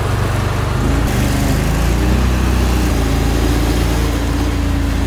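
Small boat's motor running under way, its pitch rising about a second in as it speeds up and then holding steady, with water splashing and rushing past the hull.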